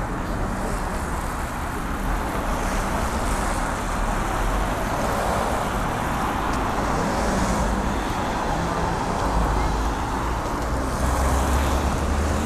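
Steady city road traffic: cars driving past on the road, with a low rumble that grows stronger near the end.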